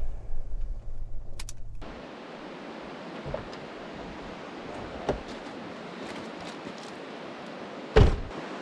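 Steady hiss of road and wind noise from a moving 4x4, with a few faint clicks and a single knock near the end. The tail of a music track fades out in the first two seconds.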